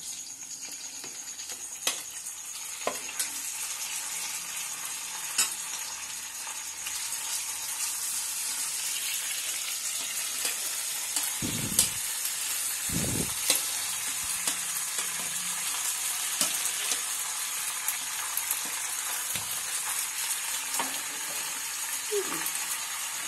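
Boiled macaroni sizzling in hot oil as it is added to a kadhai of fried onions and green chillies, with a spoon scraping and clicking against the plate and pan as the pasta is pushed in and stirred. The frying hiss grows louder partway through, and there are two low thumps near the middle.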